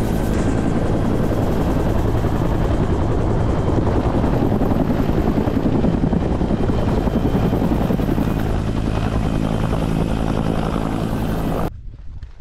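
Helicopter running steadily, a dense deep rotor drone that cuts off abruptly shortly before the end.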